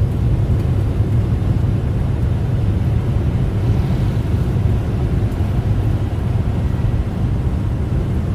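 Steady low rumble of a semi-truck, heard from inside its cab.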